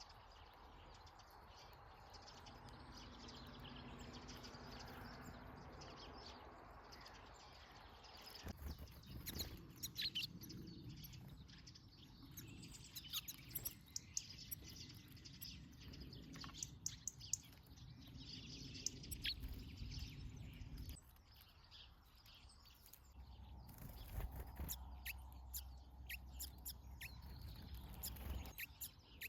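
Small songbirds chirping in short, scattered calls over a low outdoor background rumble, which changes abruptly several times.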